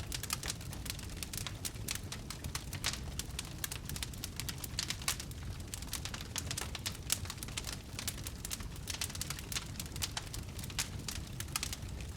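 Fire crackling, with many irregular sharp pops and snaps over a steady low rumble.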